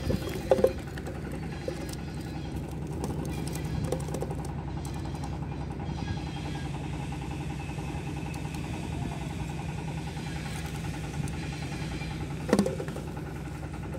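A motor drones steadily at an even pitch throughout. A sharp click or knock comes about twelve and a half seconds in.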